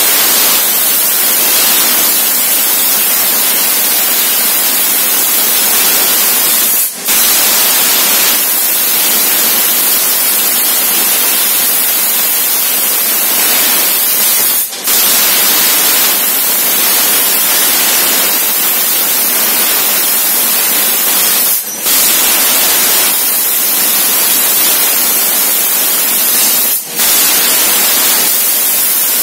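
4000 W laser cutter cutting 10 mm stainless steel plate: a loud, steady hiss of the cutting jet. It breaks off for a moment four times as the head finishes one cut and starts the next.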